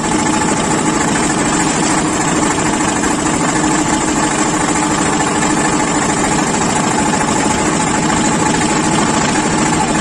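Concrete mixer machine's engine running loudly and steadily, a fast even pulsing with a steady hum.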